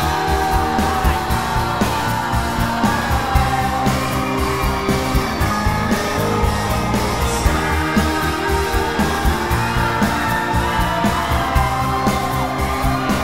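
A song sung by students over a steady beat, playing without a break.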